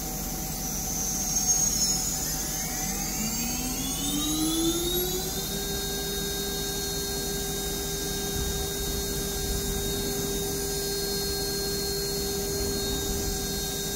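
A Heliner CNC router's spindle spinning up at maximum speed with no tool fitted: its whine climbs in pitch from about two seconds in, then holds steady from about five and a half seconds in.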